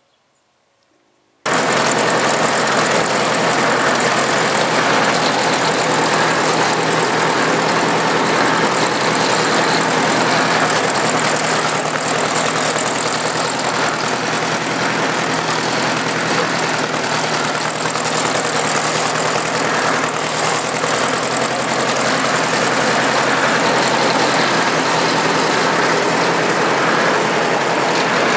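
A motor vehicle engine running steadily and loud close by, cutting in abruptly about a second and a half in and going on without a break.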